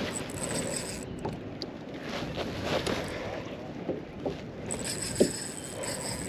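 Spinning reel working as a hooked snapper is played from a small boat: a rough, scratchy winding and line noise over water and wind on the microphone, with scattered clicks and one sharp knock about five seconds in.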